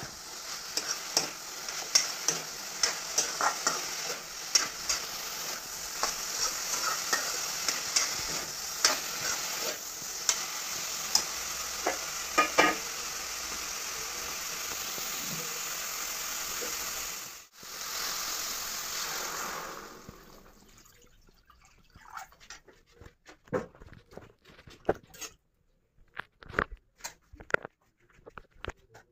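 Pork pieces sizzling in oil in a steel kadai, with a metal spoon scraping and tapping the pan as they are stirred. About two-thirds through, the sizzling stops, and only occasional spoon scrapes and clinks against the pan remain.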